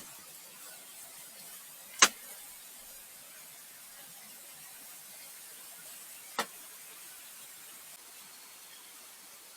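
Two sharp knocks: a loud one about two seconds in and a fainter one about four seconds later, over a faint steady hiss.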